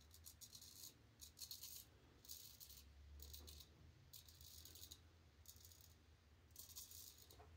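Straight razor, its edge honed on a black Arkansas stone, scraping through lathered stubble on the upper lip and cheek. It makes about seven short, dry, high rasps, roughly one stroke a second.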